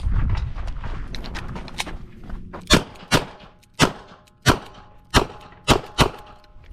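Smith & Wesson 929 revolver firing .38 Short Colt: seven sharp shots about half a second apart, starting a little over two and a half seconds in. Before them there are a low rumble and a few lighter cracks.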